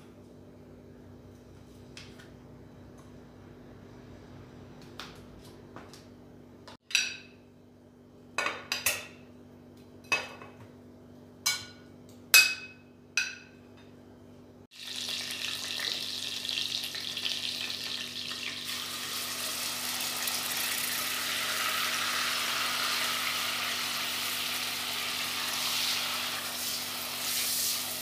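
A handful of sharp clinks and knocks of kitchen utensils against the pot and dishes. About halfway through, a steady loud sizzle starts: chicken pieces frying in oil and margarine in a pot, turned with a wooden spoon.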